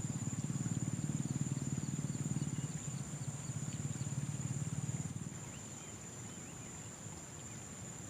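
Insects droning: a steady high-pitched whine. Under it, a low, fast pulsing sound runs for about the first five seconds and then drops away.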